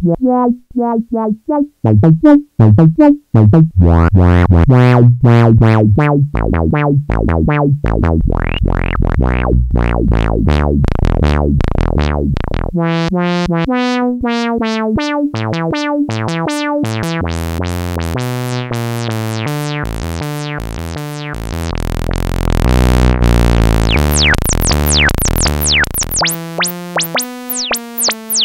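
A repeating sawtooth-wave synth pattern played through an SE 4075 Eurorack filter, its controls turned by hand so the tone keeps sweeping from dull to bright and resonant. The input is turned up to saturate the filter.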